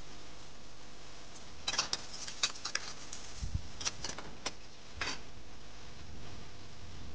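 Metal spatula clicking and scraping against a steel wok as it slides under an omelette to lift it out: a run of sharp clinks over about three seconds, with one dull thump midway.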